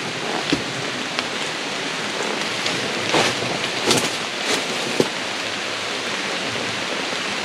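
Steady rain falling outdoors, an even rushing hiss with scattered sharp ticks of drops striking nearby surfaces.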